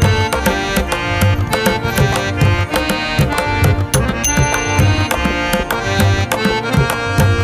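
Background instrumental music with a steady drum beat.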